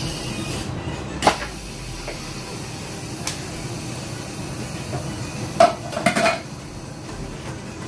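Instant Pot being handled around its quick release: a few sharp clicks and knocks, then a short ringing metallic clink about six seconds in.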